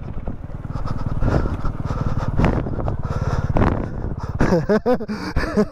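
Two-stroke dirt bike engine running under way, a rapid, steady stream of firing pulses.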